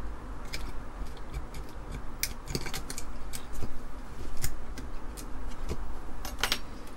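Scattered small clicks and scrapes of a DIP chip being rocked by hand in its socket and pulled loose from a circuit card, irregular, with a few sharper clicks near the middle and near the end.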